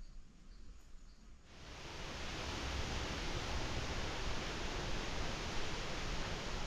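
Faint outdoor ambience, then a steady, even rushing hiss that starts abruptly about a second and a half in and holds unchanged.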